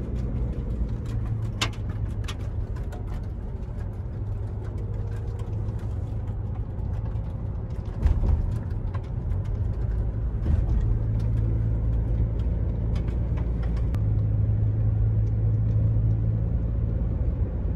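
Steady engine and road drone heard inside the cabin of a moving vehicle, a low hum with scattered light clicks and a brief louder bump about eight seconds in.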